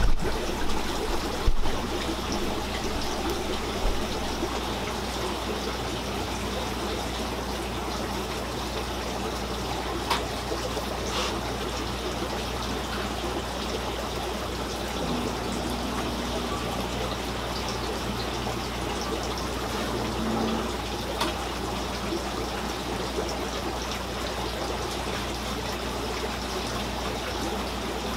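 Steady trickle of running water from the fish room's aquarium tanks and filters. A few knocks in the first two seconds as the camera is handled and set down.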